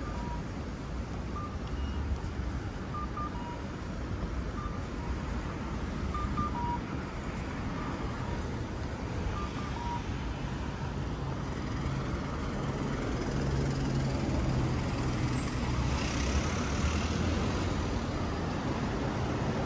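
Steady rumble of road traffic, rising in the second half as a heavier vehicle's low hum comes in. Short electronic beeps sound now and then in the first half, some in quick pairs.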